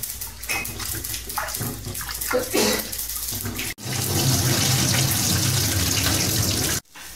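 Soaked raw rice being swished and rubbed by hand in water in a steel vessel, with irregular splashing. After a sudden break, a steady stream of cloudy wash water pours off the rice into the sink, then stops abruptly.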